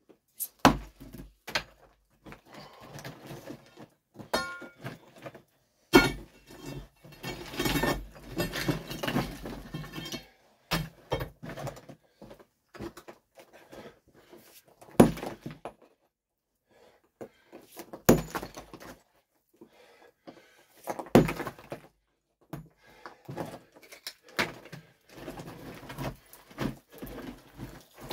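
A 20 lb sledgehammer striking rock: about five heavy, sharp blows a few seconds apart, with loose rock clattering and scraping between them as the stone breaks and shifts.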